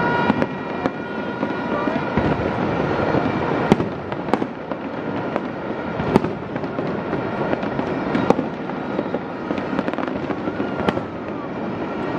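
Fireworks display: sharp bangs of shells bursting every second or two over a continuous rumble and crackle.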